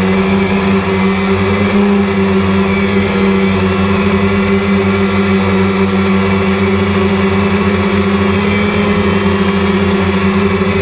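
A quadcopter drone's propellers humming steadily at one low pitch with an overtone, with a light flutter.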